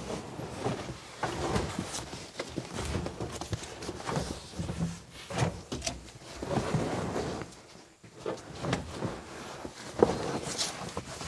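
Molded pickup carpet with a padded backing being dragged and shoved into a truck cab over the sound-deadening mat: irregular rustling, scraping and dull thumps, with a sharp knock near the end.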